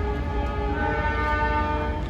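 Locomotive horn sounding a long, steady chord of several tones over a constant low rumble.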